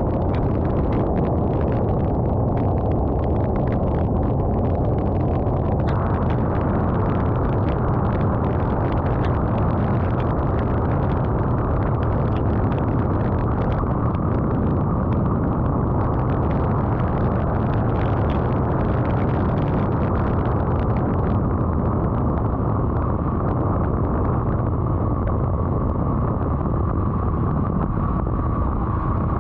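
A vehicle travelling in rain: steady road and wind noise, with a dense patter of raindrops striking the vehicle throughout.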